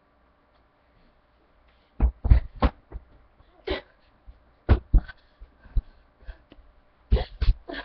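Irregular dull thumps and knocks close to the microphone, starting about two seconds in, several coming in quick pairs, with fainter ticks between them.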